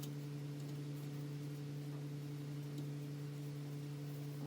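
A steady low hum holding one pitch, with a few faint ticks over it.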